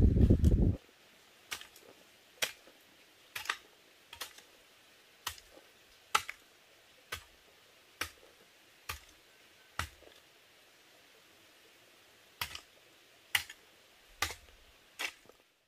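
Metal hoe blade striking into earth, sharp strikes about one a second with a pause of about two seconds past the middle. A loud low rushing noise cuts off under a second in.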